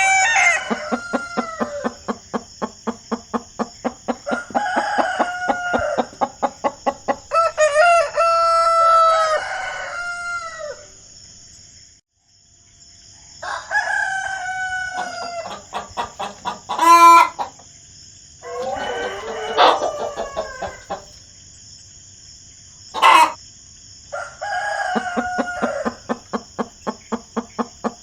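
Roosters crowing again and again, about six long crows, with hens clucking in quick repeated pulses between them and two short sharp squawks in the second half. A steady high hiss runs underneath, and the sound briefly drops out near the middle.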